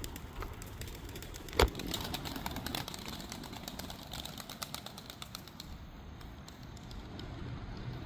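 Iraqi tumbler pigeons in flight: a run of light wing claps and flaps, with one sharp, loud clap about one and a half seconds in.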